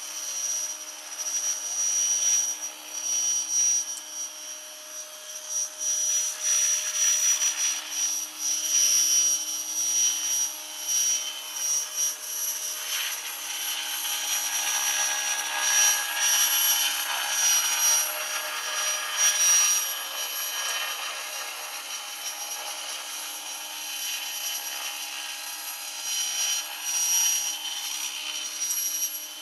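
Radio-controlled model helicopter running, its motor and rotor giving a steady high-pitched whine. The whine swells and gets rougher in the middle.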